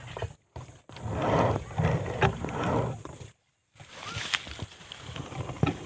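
Dry grass and brush rustling and crackling as someone walks through it, with scattered knocks of the camera being handled. The sound drops out for a moment a few times.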